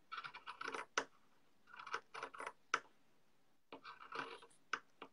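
Scissors cutting through a washcloth in three short runs of snips and rasps, each about a second long, with short pauses between.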